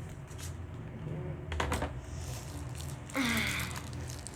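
Light clicks and taps of takeout food packaging being handled, with a brief louder rustle and a short voice sound about three seconds in.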